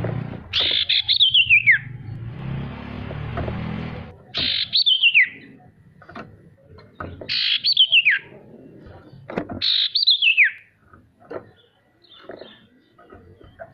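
Sirtu bird calling: four whistled notes a few seconds apart, each sliding down in pitch over about a second, with fainter chirps near the end.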